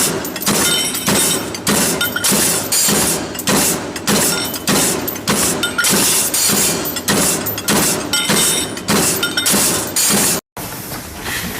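Machinery in a factory clattering with quick repeated sharp knocks, about two to three a second, stopping abruptly about ten and a half seconds in.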